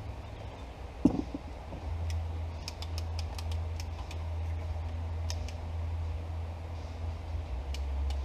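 Hand tools being handled: one sharp knock about a second in, then a scatter of light clicks and ticks. Under them a low, steady rumble sets in about two seconds in.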